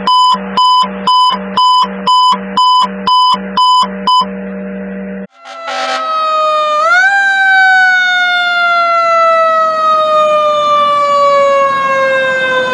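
Electronic beeping, a little over two beeps a second over a steady low hum, cuts off abruptly about five seconds in. Then a fire truck's siren spins up about seven seconds in and slowly winds down in pitch.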